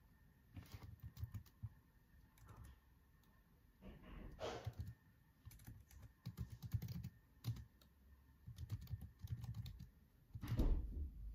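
Typing on a laptop keyboard: soft key taps in short runs with pauses between, the loudest run near the end.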